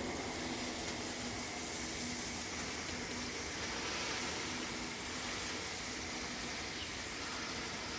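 A moving car with a steady drone and hiss from underneath, caused by a loose plastic belly pan dragging on the road. A faint low hum sits under the noise for the first few seconds.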